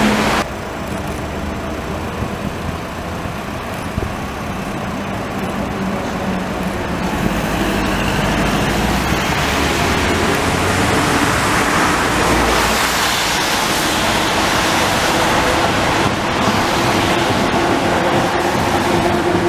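Street traffic on a rain-wet road, with a steady hiss of tyres on wet asphalt. It grows louder as a tram approaches and passes close near the end.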